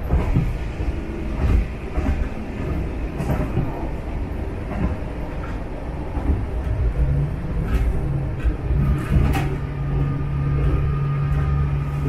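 Local diesel railcar running along a country branch line, heard from on board: a steady low rumble with scattered knocks and clacks from the wheels on the track. About seven seconds in, a steady low hum sets in under it.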